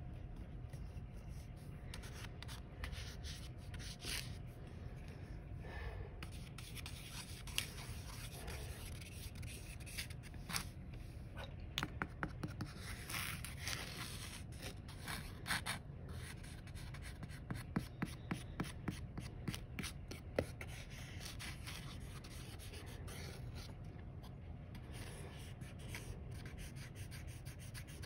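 Pencil drawing through fine white sand in a paper plate: a soft, grainy scratching and rubbing as the eraser end ploughs lines, with clusters of short ticks in places.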